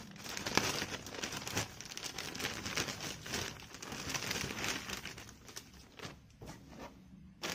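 Plastic wrapping crinkling and rustling as it is handled and opened by hand, quieter near the end.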